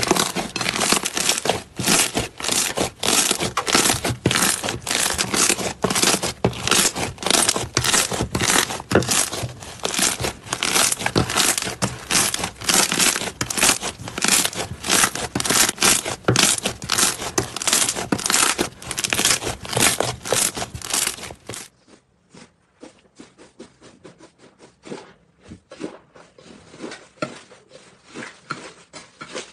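Hands squeezing and pressing slime, a dense, fast run of tiny crackling clicks and pops. About twenty seconds in it cuts to a quieter, sparser crackle as a different, crumbly slime is squished.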